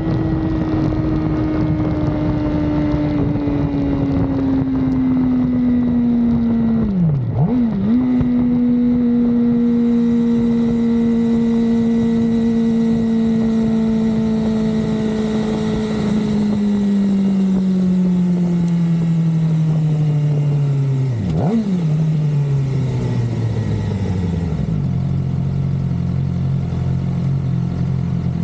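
Suzuki GSX-R600 sport bike's inline-four engine heard from the rider's seat, winding down as the bike slows, with wind noise. The note falls steadily, breaks sharply and recovers twice at gear changes, and settles into a low, steady idle near the end as the bike comes to a stop.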